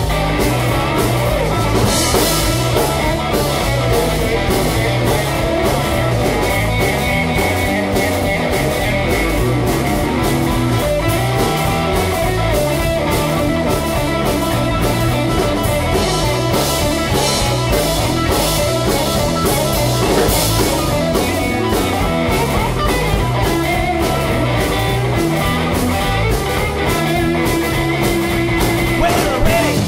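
Instrumental break of a rock and roll song, played without vocals on guitar, bass guitar and drum kit, at a steady driving beat.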